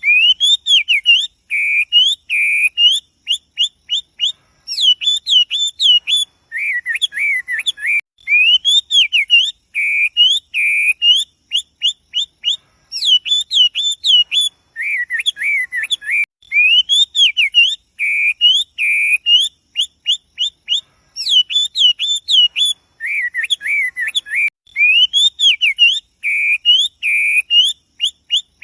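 Poksay wambi bird singing a loud, varied song of rising and falling whistles and quick runs of notes, the same sequence of phrases repeating about every eight seconds.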